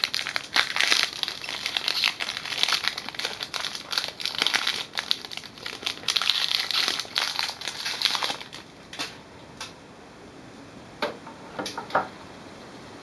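Foil pouch of an HP 64 ink cartridge torn open and crinkled as the cartridge is pulled out, for about eight seconds. Then a few light taps near the end.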